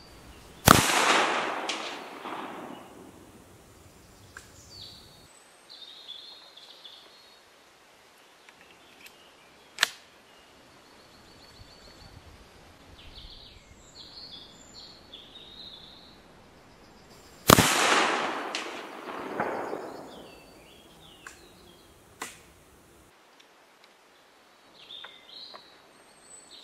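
Two shots from an 1854/67 Wänzl breech-loading rifle firing black-powder 14x33R cartridges, about seventeen seconds apart. Each sharp report trails off in a long echo. A single sharp click falls between them.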